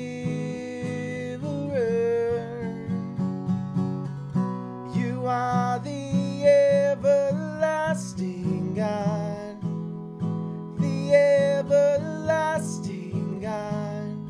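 A man singing a worship song to his own strummed acoustic guitar, with a steady strumming rhythm and sung phrases broken by short pauses.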